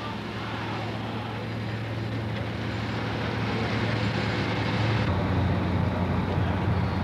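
Pro Stock pulling tractor's turbocharged diesel engine running with a steady low drone, slowly growing louder. About five seconds in the sound changes abruptly to a second pulling tractor's diesel working under load down the track.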